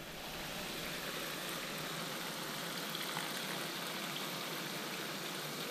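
Frying pan of golden apple snails in sauce sizzling with a steady hiss on an induction hob, as Coca-Cola is poured in.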